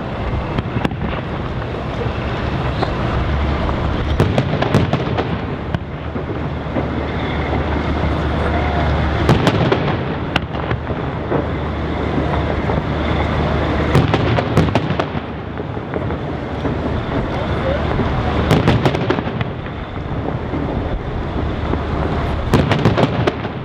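Aerial fireworks display: shells bursting overhead over a continuous rumble. Clusters of sharp bangs come about every four to five seconds.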